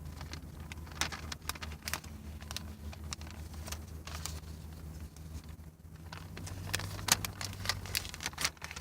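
Paper receipt being handled and folded: scattered light rustles and clicks, busier near the end, over a steady low hum.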